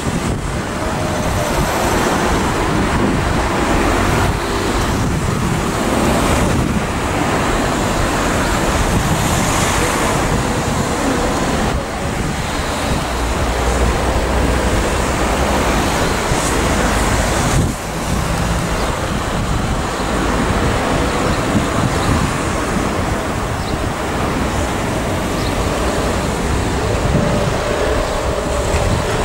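Steady hiss and low rumble of an LNER A4 Pacific steam locomotive standing in steam as it is turned on a turntable, mixed with wind buffeting the microphone. The noise dips briefly twice.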